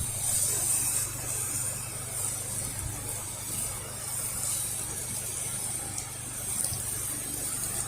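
Pressure washer running steadily, its engine and pump giving a low hum under the steady hiss of the spray as a house is washed down with a bleach and surfactant mix.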